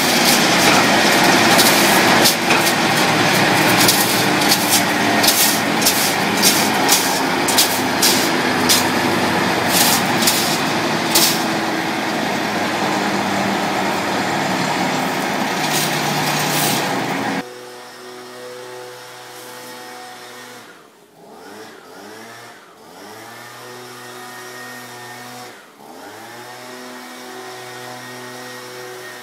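Wood chipper running hard and chewing branches: a loud grinding noise studded with sharp cracks of wood. About two-thirds of the way through it drops abruptly to a quieter, steady engine hum with no wood going through.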